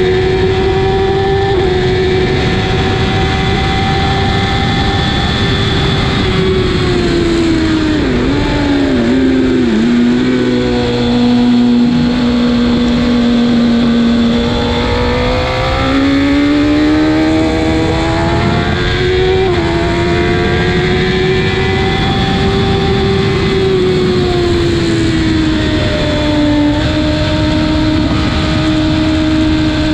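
Suzuki GSX-R 1000's inline-four engine at high revs on track, the pitch held high, then dropping with quick blips as it shifts down about a third of the way in, staying low for a few seconds and climbing again through upshifts.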